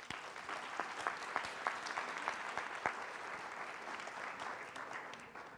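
Audience applauding: dense clapping from many hands that starts suddenly and tapers off near the end.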